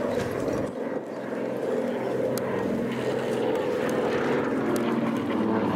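Piston engines and propellers of a 1930s twin-engine monoplane droning steadily as it flies past.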